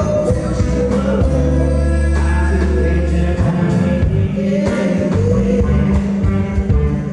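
Live band music with two men singing together at stage microphones, long held notes over a steady bass line, in a slow gospel-like style.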